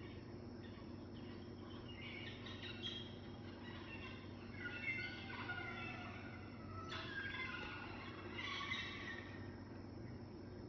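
Birds chirping and calling in bursts from a TV nature program's soundtrack, over a faint steady hum.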